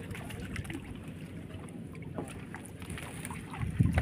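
Wind buffeting the microphone over a steady low rumble, with scattered knocks and rustles as a fishing net full of fish is hauled into a wooden boat; a louder thump near the end.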